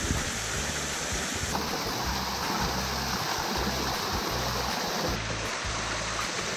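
Small waterfall splashing down over rock into a river pool: a steady, even rush of falling water.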